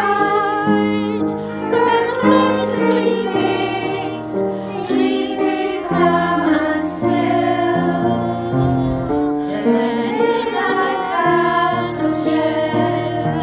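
Children and adults singing a Christmas carol together with musical accompaniment.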